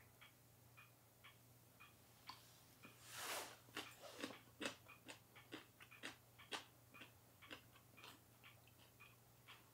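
A clock ticking about twice a second. From about three seconds in, someone chews a mouthful of dressed mountain-vegetable shoots, a brief crunch followed by a run of irregular small crisp clicks that die away near the end.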